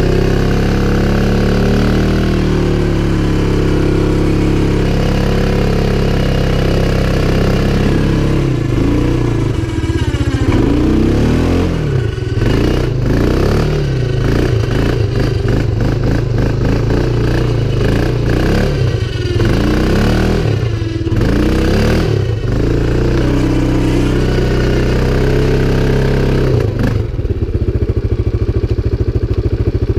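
CFMoto 500 ATV's single-cylinder engine running at a steady note, then revving up and down repeatedly from about eight seconds in for roughly fifteen seconds, with some clatter, before settling back to a steady note.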